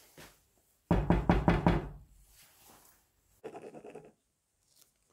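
Knuckles knocking on a glass-panelled wooden door: a loud run of quick raps about a second in, then a second, quieter round of raps a couple of seconds later.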